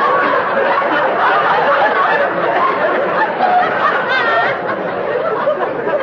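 Studio audience laughing, a dense unbroken crowd laugh.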